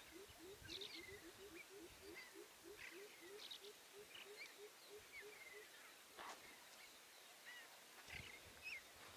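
Faint outdoor wildlife calls: a low, short note repeated about four times a second, each note lifting slightly in pitch, which stops a little past halfway, with scattered high bird chirps over it. A few faint low thumps come near the end.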